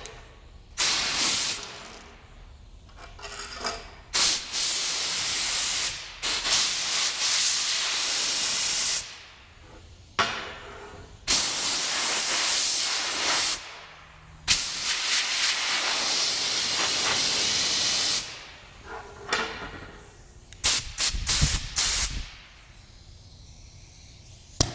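Typhoon Pro compressed-air blow gun blasting air in repeated bursts of loud hissing, each lasting one to four seconds with short pauses between, followed by several quick short blasts near the end.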